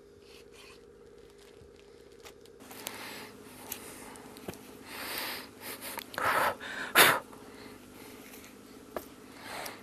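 Muskrat being skinned by hand and knife: rustling and handling of the pelt and a plastic sack, growing busier about two and a half seconds in, with a few short louder bursts, the loudest about seven seconds in. A low steady hum runs underneath.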